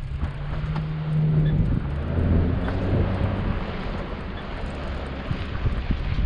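A 4x4 truck's engine running, its hum steady at first, dropping lower about two seconds in, then fading under a rushing noise, with scattered small clicks and knocks.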